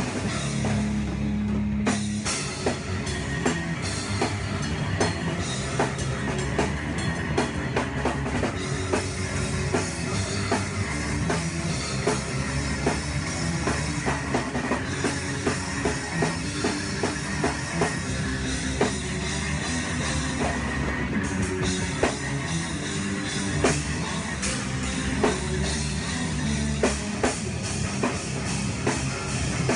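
Rock band playing live: a drum kit with heavy cymbals at the front of the mix, with electric bass guitar and electric guitar, keeping a steady driving beat.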